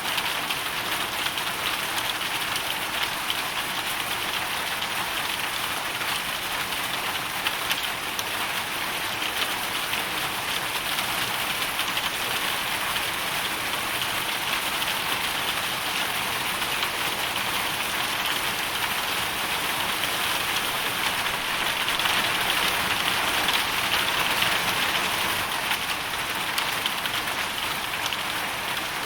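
Hailstorm: a dense, steady patter of hail and rain striking a hard surface, swelling slightly about three-quarters of the way through.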